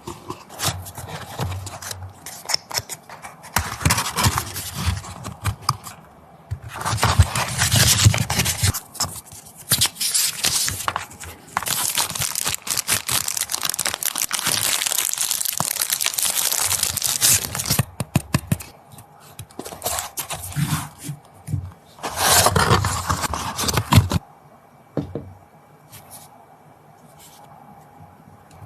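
Smartphone packaging being opened by hand: plastic wrap tearing and crinkling, and cardboard sliding and scraping. It comes in bursts, with a long continuous stretch in the middle and a quieter spell near the end.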